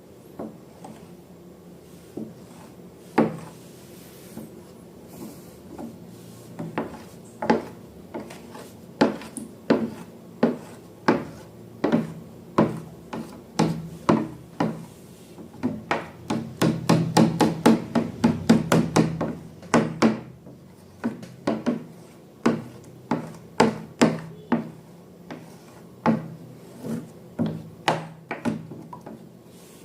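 Slime being pressed and worked by hand, giving a run of sharp, irregular clicks and pops that come thick and fast about halfway through.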